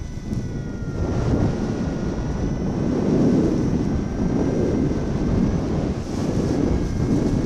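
Wind buffeting the microphone of a paraglider pilot's camera in a strong breeze, a rough gusting rush that grows louder about a second in and stays strong.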